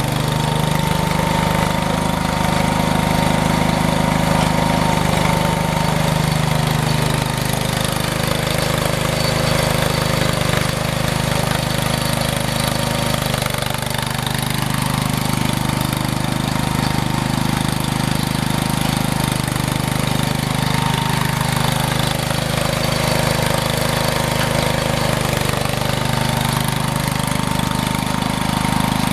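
Engine of a snow-clearing machine running steadily, its pitch drifting slowly up and down.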